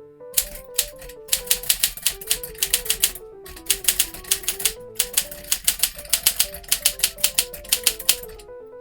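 Keys of a 1955 Smith Corona Silent Super portable manual typewriter being struck in quick runs of about five or six clacks a second, with brief pauses, over background music with a simple melody.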